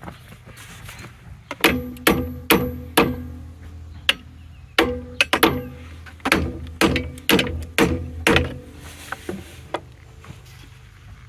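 Hammer blows on metal, each ringing briefly: four strikes about a second and a half in, then a quicker run of about ten from about five seconds in, with a few lighter taps near the end. This is typical of driving a tight-fitting homemade sleeve onto a sawmill driveline shaft.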